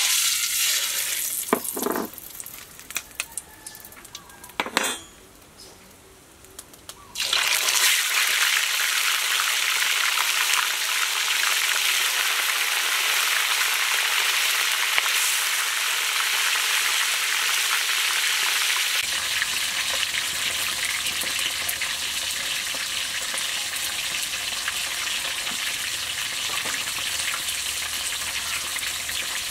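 Chunks of fish deep-frying in hot oil in a wok. A loud, steady sizzle starts suddenly about seven seconds in as the fish goes into the oil, after a quieter stretch with a few light clicks.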